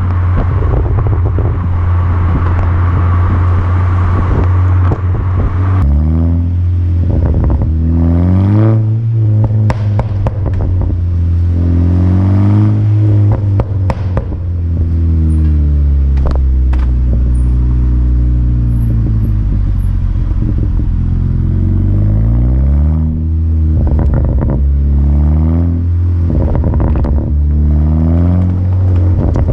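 VW Golf GTI Mk6's turbocharged four-cylinder through an Akrapovic exhaust, running steadily for the first few seconds, then revving up and falling back again and again. Sharp crackles and pops from the tailpipes come as the revs drop, from a tune set up for pops and bangs.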